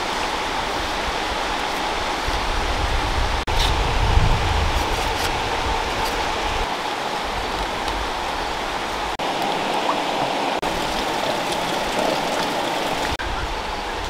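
Steady rush of flowing water from a stream, an even hiss with no pitch, broken by a few momentary dropouts.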